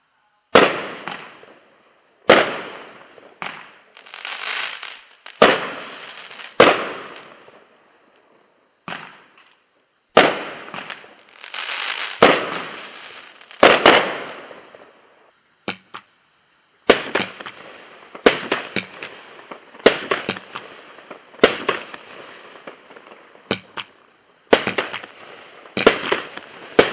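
Consumer 8-shot firework cakes (Swanky Monkey and Mustang) firing a sequence of shots: sharp launch and burst bangs, some trailing off over a second or two. The shots come about every one to two seconds at first and closer together in the second half.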